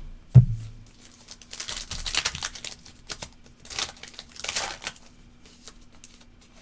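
A thump near the start, then a trading-card pack's wrapper crinkling and tearing in several bursts as it is opened, over a faint steady hum.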